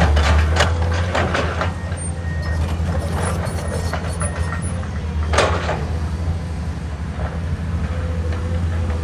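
Komatsu PC210 excavator's diesel engine running with a steady low drone, with several brief harsh noises from the working machine; the loudest comes about five and a half seconds in.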